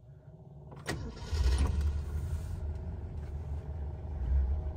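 A Mercury 410 cubic inch FE V8 being started, heard from inside the cabin: a click as the key turns a little under a second in, then the engine catches, runs up briefly and settles into a steady, smooth idle.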